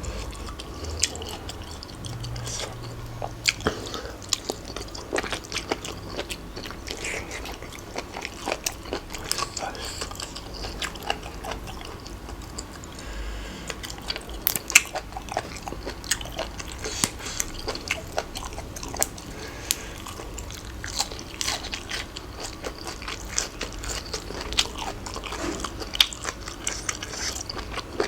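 Close-up eating sounds: a person biting and chewing crunchy food, a seafood salad with cuttlefish, shrimp and raw vegetables, with many irregular sharp crunches and wet clicks.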